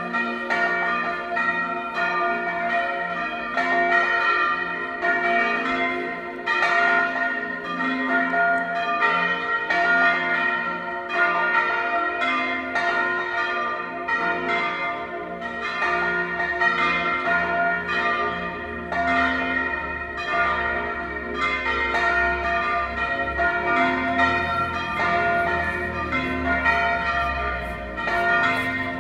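Four swinging church bells, numbers II (F3), IV (B-flat3), V (C4) and VI of a six-bell Tyrolean-style ring, pealing together, their strokes overlapping in a continuous irregular clangour with long ringing tails.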